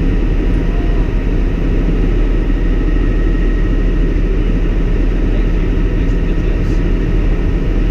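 Cabin noise of a Bell 206L LongRanger II helicopter in cruise: a loud, steady drone of main rotor and turbine engine, with a thin steady whine above it.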